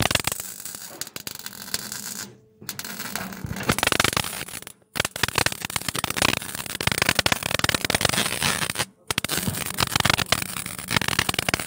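MIG welder crackling as it lays a weld on a car's steel exhaust pipe, in four runs with short pauses between them.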